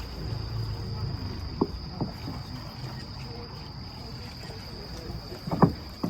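Steady high-pitched insect chirring, likely crickets, with a low rumble underneath and a few short sharp knocks, the loudest near the end.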